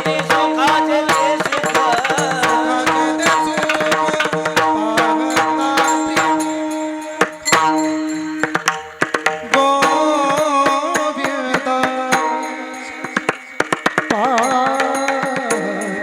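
Varkari kirtan music: mridang drumming under a sustained, wavering melody. The drum strokes come fast, with a quieter stretch near the end before the melody comes back in.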